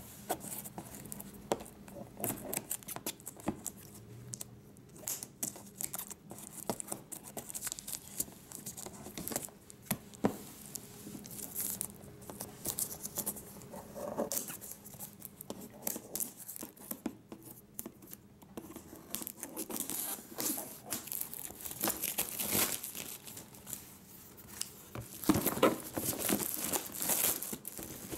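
Scissors cutting and tearing through the plastic shrink wrap on a boxed router, with the film crinkling as it is pulled away. Many small snips and rustles, busiest and loudest near the end.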